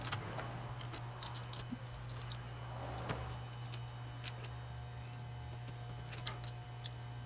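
Scattered faint clicks and light rattles of metal parts being handled on a workbench, with a soft rustle about three seconds in, over a steady low hum.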